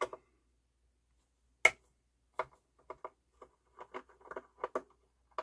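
One sharp click, then a run of lighter clicks and taps, as a small part of the Pioneer PL-560 turntable's mechanism is worked loose by hand.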